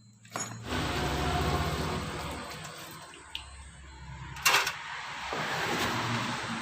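A small outboard motor starting up and running with a fast, even beat, with a few sharp clacks about four and a half seconds in.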